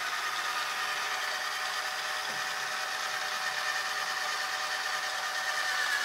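Xiaomi Mi Robot Vacuum Mop Essential running, its suction fan giving a steady high whine over a hiss while the robot heads back to its charging dock.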